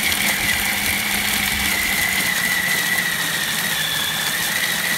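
Electric food processor running steadily, its blade grinding whole dry spices (dried red chillies, coriander seeds, peppercorns) in the plastic bowl, with a steady high motor whine over a dense grinding noise.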